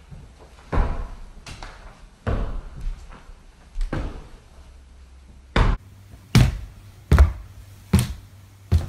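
A series of about eight heavy thuds, four spaced well apart and then four coming twice as fast.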